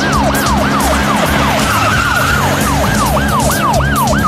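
Electronic emergency-vehicle siren sounding a fast repeating pattern of quick falling sweeps, about three a second.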